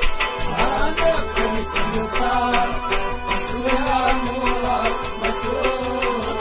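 Kashmiri Sufi folk music: held drone-like instrument tones under a melody that slides up and down, kept in time by a quick, steady beat of shaken rattle-like percussion.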